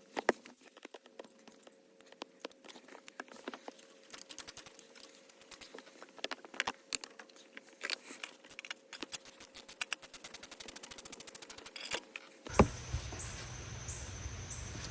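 Ratchet wrench undoing an alternator mounting bolt: scattered clicks and knocks, then a fast, even run of ratchet clicks as the bolt spins out. Near the end a steady hum comes in.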